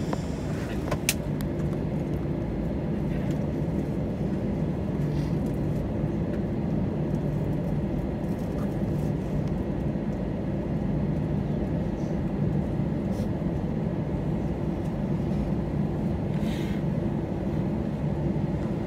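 Cabin noise of an Airbus A321 taxiing: a steady low hum from the jet engines at low taxi power, even throughout with no spool-up. A single sharp click about a second in.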